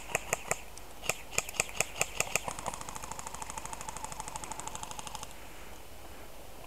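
Airsoft guns firing: quick single shots about five a second in two short strings, then a sustained fully automatic burst with a steady whine under it that stops about 5 seconds in.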